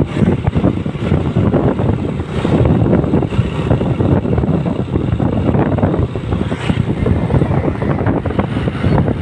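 Wind buffeting the microphone of a phone carried on a moving motorcycle, a loud, steady rumble with the ride's road and engine noise underneath.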